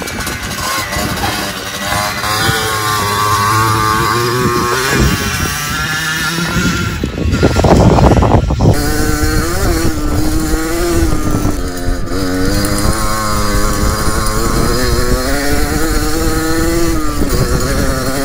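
Small two-stroke dirt bike engine, a Yamaha DT 50, buzzing as it is ridden, its pitch rising and falling with throttle and gear changes. A loud rush of noise comes about eight seconds in.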